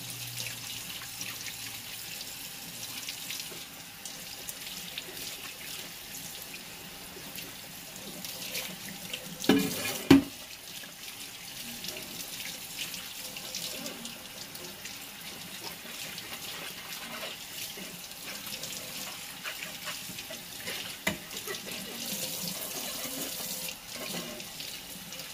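Kitchen faucet running into a stainless steel sink, the stream splashing over a glass 3D-printer bed as the soap is rinsed off by hand. About ten seconds in there is a loud knock, followed at once by a second sharp one.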